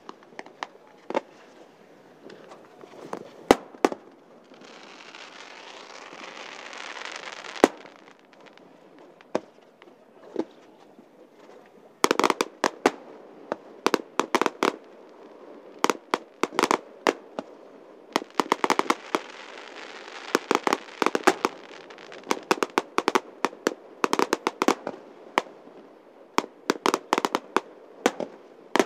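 Aerial firework shells going off: scattered sharp bangs, then a hiss that swells for about three seconds and ends in a sharp bang. From about twelve seconds in, a dense rapid volley of bangs and crackles.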